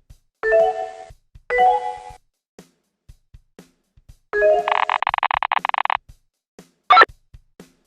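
Telephone ringing sound effect: two short rings, then a longer rattling bell ring, followed by a brief sharp sound near the end, over faint steady ticking.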